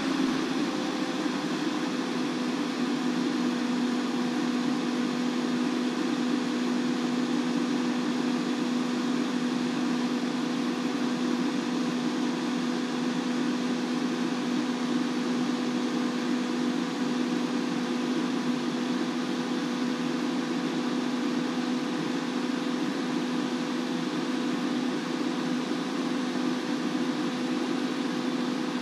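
Auto Meter SB-5DT battery load tester holding a 330-amp load on a 12-volt AGM battery: its cooling fan runs with a steady whir and a steady low hum.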